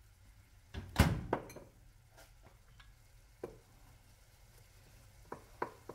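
A few knocks and clicks of a utensil against a frying pan, the loudest about a second in, over faint sizzling of chopped onion, bell pepper and tomatoes frying in oil.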